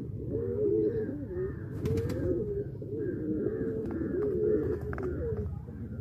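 Several domestic fantail pigeons cooing at once, their low coos overlapping without a break, with a few brief clicks.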